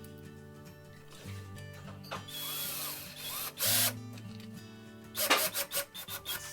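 Power drill/driver running in short bursts, driving the thermostat back plate's mounting screws into the wall, with a quick run of short trigger bursts about five seconds in. Background music plays underneath.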